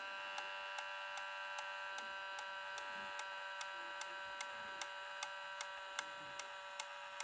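Easythreed X1 3D printer clicking regularly, about two and a half clicks a second, over a steady whine, during filament loading.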